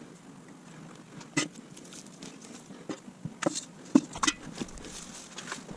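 Irregular soft knocks and rustles of potato-harvesting work, sped up fourfold, with a few sharper knocks near the middle.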